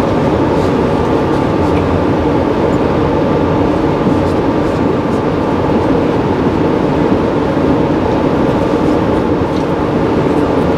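Steady rumble and hiss of a passenger railcar rolling along the track, heard from inside the car.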